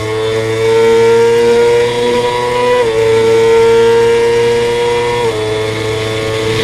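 Suzuki GSX-R inline-four sportbike engine pulling hard at full throttle from the onboard position, its pitch climbing and then dropping sharply with an upshift about 3 seconds in and another about 5 seconds in. A rush of wind noise runs under it.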